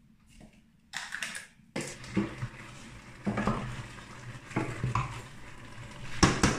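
A wooden spoon stirring food in a stainless steel cooking pot, knocking against the pot several times over a steady hiss. A brief clatter comes about a second in, just before the stirring starts.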